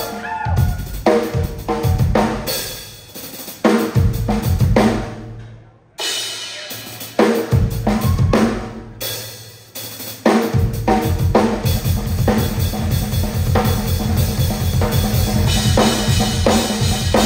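Live drum solo on a Tama acoustic drum kit: big accented drum and cymbal hits that ring out and die away, then from about ten seconds in a continuous fast barrage of strokes with a heavy low end.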